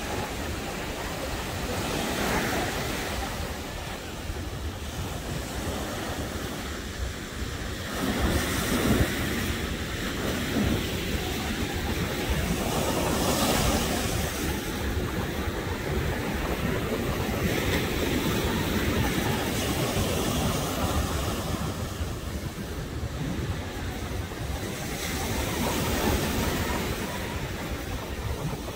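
Ocean surf breaking and washing up the beach, swelling and easing every few seconds, with wind rumbling on the microphone.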